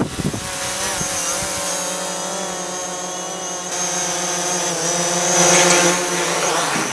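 DJI Mavic Pro quadcopter's propellers and motors buzzing with a steady, slightly wavering whine as it comes down to land, getting louder about five and a half seconds in.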